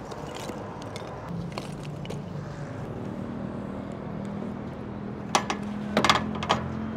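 Steady low engine hum, with a few sharp metallic clinks near the end as hinged wire grill baskets are handled over a charcoal grill.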